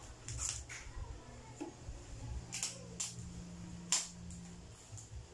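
Disposable diaper's plastic backing crinkling as it is fastened around the waist, with a few sharp crackles, the sharpest about four seconds in.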